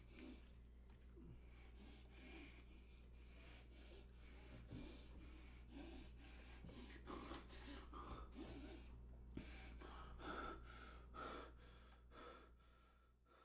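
Faint, repeated breathy gasps from a person over a steady low hum, fading out near the end.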